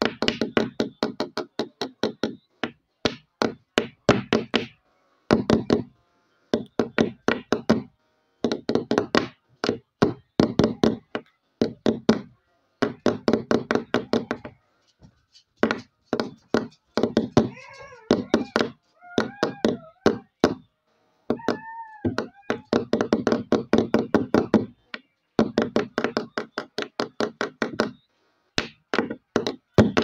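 A child making the background sounds of a song: runs of rapid clicks and knocks in bursts of a second or two, with short breaks between them. Near the middle come a few high, bending vocal squeals.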